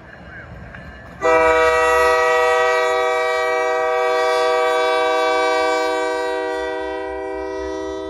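Union Pacific diesel locomotive's multi-chime air horn sounding one long, loud blast for a grade crossing, coming in sharply about a second in and easing a little near the end. The low rumble of the locomotives' diesel engines runs underneath.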